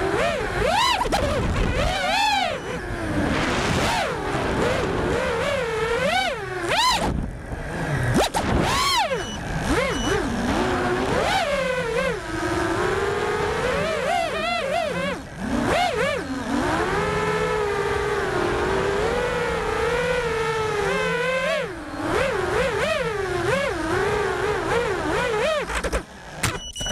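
Brushless motors of a 4S FPV racing quadcopter (DYS Storm motors on an iFlight R1 frame) whining, recorded on board, the pitch rising and falling again and again with the throttle. The sound drops away sharply near the end as the quad ends up upside down.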